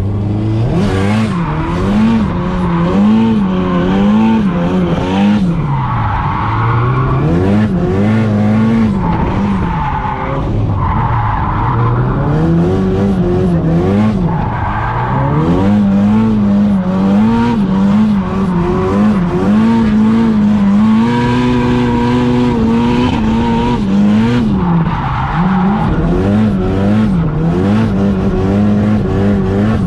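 A 420 hp turbocharged Nissan SR20DET inline-four, heard from inside the cabin while drifting, revving up and falling back over and over. For a few seconds past the middle it holds steady high revs. The tyres squeal in several bursts.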